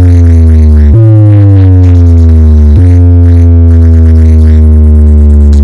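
Electronic music blasting through a large stacked DJ speaker wall, dominated by deep bass. A pitched synth tone slides downward, restarts about a second in and again near the middle, then holds steady.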